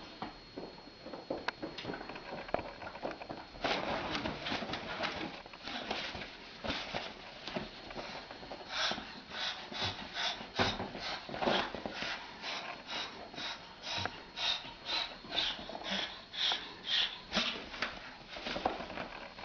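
A pet animal making short breathy sniffing sounds, coming faster, about two a second, from about halfway through.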